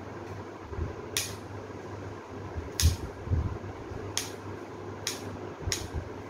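Florist's scissors snipping through leafy flower stems: five short, crisp snips at uneven intervals, over a low steady hum.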